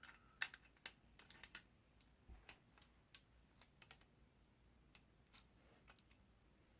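Faint, irregular light clicks and taps, denser in the first two seconds and sparser after, from a steel stripper clip and 7.62x54R cartridges being handled and wiggled where the clip has play.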